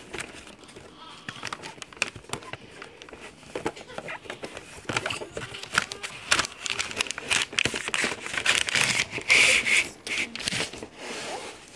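Paper rustling and crinkling, with many small clicks and taps, as a roll of drawing paper is pulled through a plastic art desk; a louder, longer rasp of paper comes about nine seconds in.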